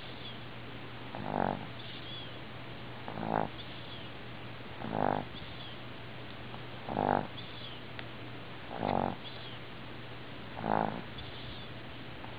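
A sleeping dog snoring in a steady rhythm: six short buzzy snores about two seconds apart, with faint high whistling squeaks between them.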